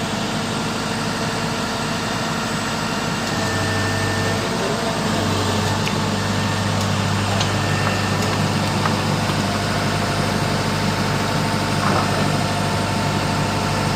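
Engine of an underground cable-laying drill machine running steadily, with a low, even hum.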